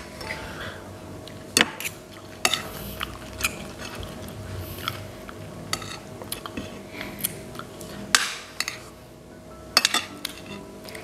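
Metal spoons and forks clinking and scraping on ceramic plates of fried pempek, with several sharp clinks among quieter scraping.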